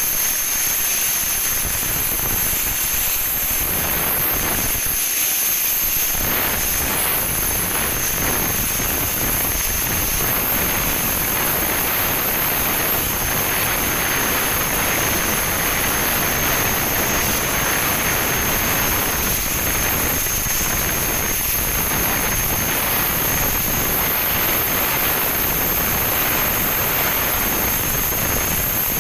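Steady industrial machine noise: a constant loud hiss with several high, steady whining tones above it.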